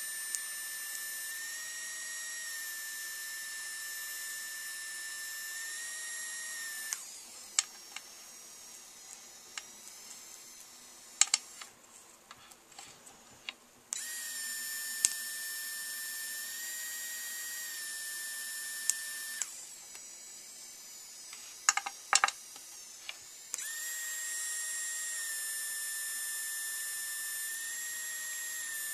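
3Doodler 3D pen's extruder motor whining steadily as it feeds plastic filament. The whine cuts out twice for several seconds, and a few sharp clicks sound in the pauses.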